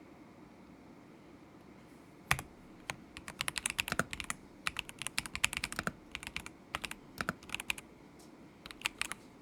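Typing on a stock KZZI K75 Pro mechanical keyboard with Moment linear switches: after about two seconds of quiet, a single loud keystroke starts irregular bursts of rapid clacking keystrokes, with short pauses between bursts.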